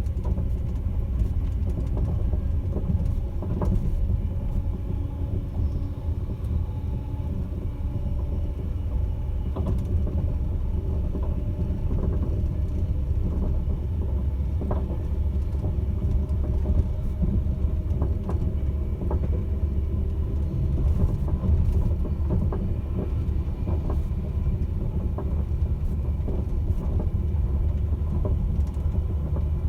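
Sleeper train running: a steady low rumble with scattered light clicks and knocks.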